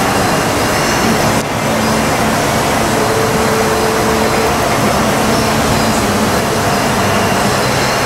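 Steady, loud mechanical din of brewery machinery, with a brief dip about a second and a half in.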